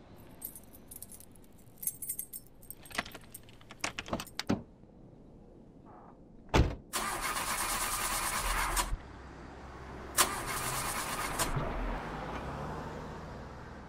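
Keys jangling and clicking at a Ford Ranger pickup's driver door, then a door thud about six and a half seconds in. The starter then cranks the engine twice, once for about two seconds and again for about a second and a half, and a low steady hum follows.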